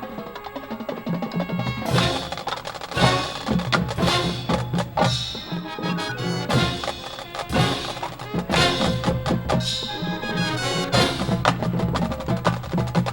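High school marching band playing, with percussion to the fore: sharp accented hits about once a second over sustained pitched music.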